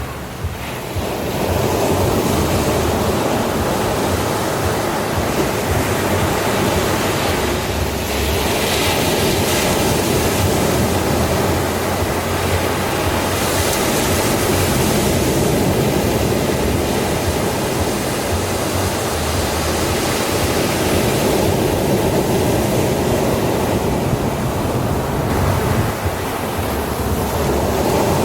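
Ocean surf washing onto a sandy beach: a steady rush of breaking waves, a little quieter for the first second or so.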